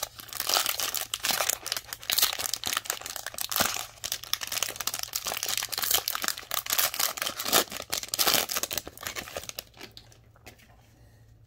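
Trading-card pack wrapper crinkling as it is torn open and handled by hand, a dense crackle of plastic foil that stops near the end.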